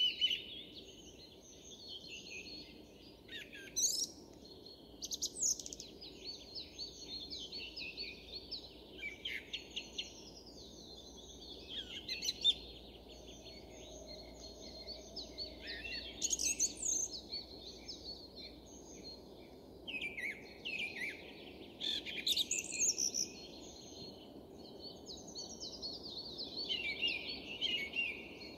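Song thrush singing: a steady run of varied phrases of quick high notes, with short pauses between phrases, over a faint low background rumble.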